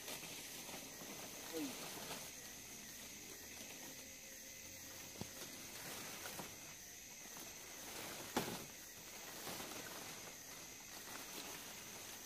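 Steady high-pitched drone of forest insects, with a few short knocks, the sharpest about eight seconds in.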